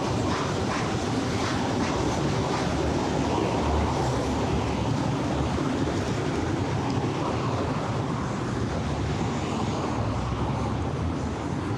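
Steady low rumble of passing vehicles in city traffic, with a few light regular ticks in the first second.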